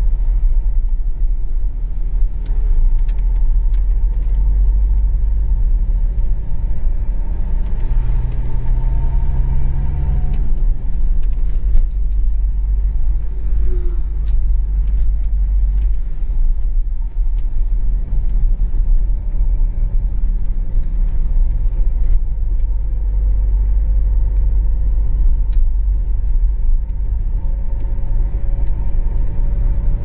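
Steady low rumble of engine and road noise inside a moving car's cabin. The engine's hum shifts in pitch a few times, rising about eight seconds in and dropping away about two seconds later.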